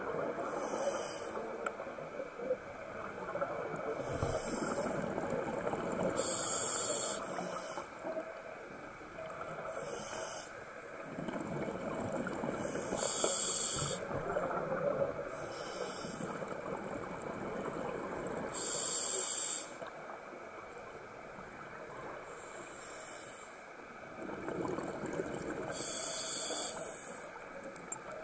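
Scuba diver breathing underwater through a regulator: a short hiss of air about every three seconds, over a steady rumble of bubbles and water noise.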